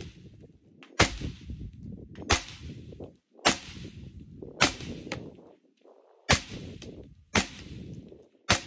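Suppressed AR-style rifle firing seven single shots at a steady pace, about one every one to one and a half seconds, with a slightly longer pause before the fifth. Each shot is a sharp report followed by a short rumbling echo.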